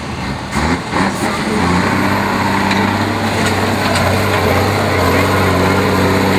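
Diesel engine of an off-road trial truck working under load as it climbs a steep muddy slope. After about a second and a half it settles into a steady, loud, low drone.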